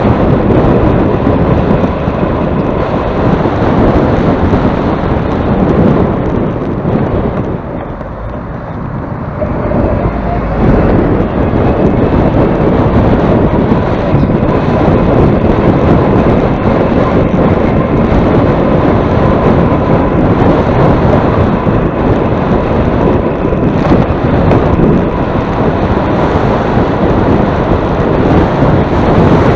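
Strong headwind buffeting the microphone in a continuous roar, easing briefly for a couple of seconds about a quarter of the way through.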